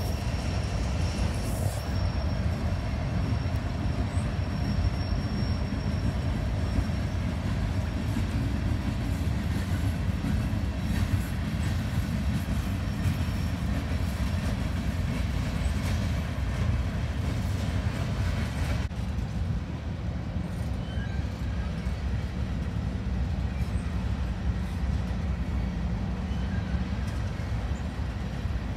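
Freight train rolling past: a steady low rumble of hopper cars' wheels on the rails, with a faint high steady wheel squeal in the first few seconds. The sound shifts abruptly about two-thirds through.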